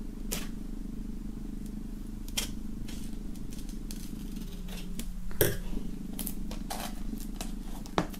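Knife point piercing and slitting the plastic shrink-wrap on a vinyl record sleeve: scattered short clicks and crinkles of the film, the loudest about five and a half seconds in, over a steady low hum.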